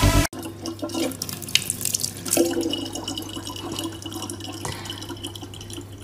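Thin stream of tap water running from a faucet into a plastic water jug in a sink, with a steady splashing hiss.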